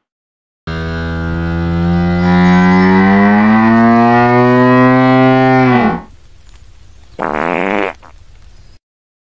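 Hippopotamus call: one long, loud bellow of about five seconds whose pitch rises slowly and drops off at the end. About a second later comes a short second call.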